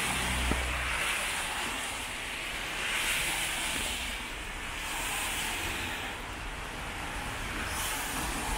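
Cars passing on a rain-wet city street, their tyres hissing on the wet road, the hiss swelling and fading about three times over a steady background wash.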